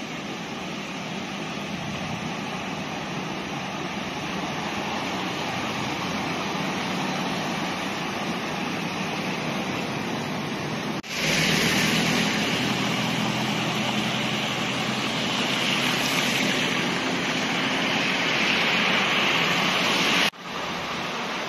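Road traffic driving through standing floodwater: a steady hiss of tyres through water under the engines. About halfway through it cuts to a louder, hissier stretch, and it cuts again near the end.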